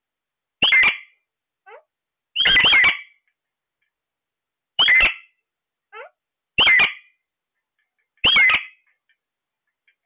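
Caged Alexandrine and ring-necked parakeets calling: five loud, harsh squawks about every two seconds, the second one longer, with two fainter short falling calls in between.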